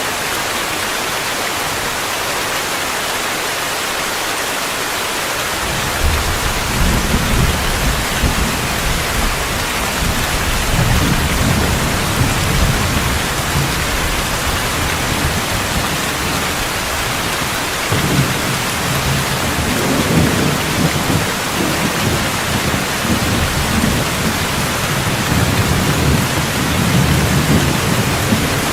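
Steady heavy rain hissing. About six seconds in, a low rolling rumble of thunder begins and keeps surging and fading, with a fresh roll about eighteen seconds in.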